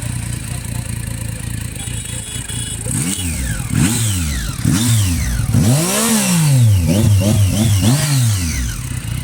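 Triumph Street Triple 675's inline three-cylinder engine breathing through a full-system Arrow exhaust. It idles, then is blipped about six times from about three seconds in, the biggest rev near the middle and a quick cluster after it, before settling back to idle.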